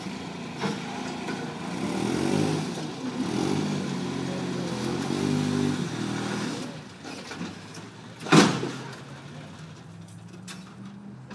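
Truck-mounted forklift's engine revving, its pitch rising and falling as the forklift hoists itself up onto the back of the truck, then one loud clank about eight seconds in, after which it runs more quietly.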